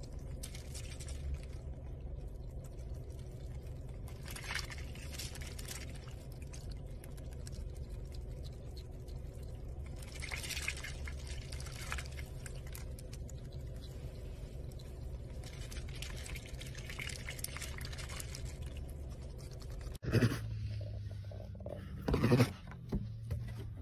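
A duck dabbling in a plastic cup of ice water, giving short bursts of slurping and splashing with ice shifting in the cup, over the steady low hum of a car's idling engine. Near the end, two loud short sounds, the second with a low pitched tone.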